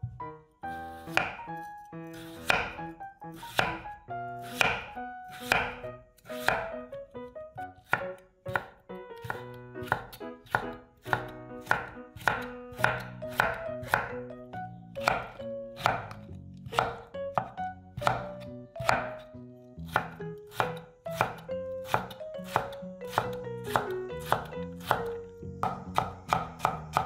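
Chef's knife chopping a raw peeled potato on a bamboo cutting board: even, sharp strikes about one and a half a second, cutting it into matchsticks and then mincing them into small dice. The strikes quicken near the end.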